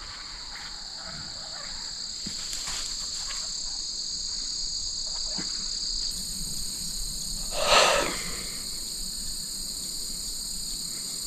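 Steady chirring chorus of crickets and other insects, with a second, higher-pitched chorus joining about six seconds in. A brief, louder noise cuts across it once, near eight seconds.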